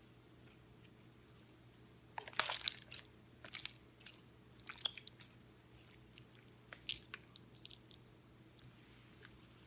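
Slime being squeezed and pressed by hand, crackling and popping in several short bursts, the loudest a couple of seconds in, with smaller crackles after it.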